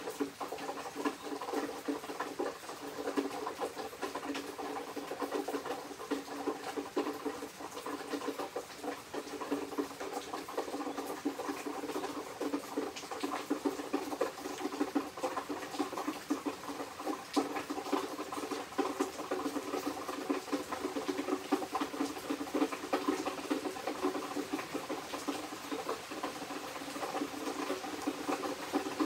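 Summer rain pattering steadily, a dense, even spatter of drops.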